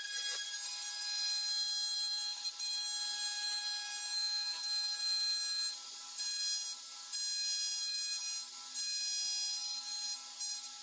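Compact trim router running at full speed with a steady high-pitched whine. The level dips briefly several times in the second half.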